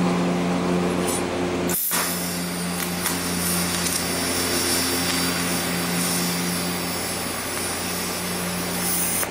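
Shop machinery running steadily: an electric motor hum with a rushing, air-like hiss. It drops out for an instant about two seconds in and comes back with a brighter hiss.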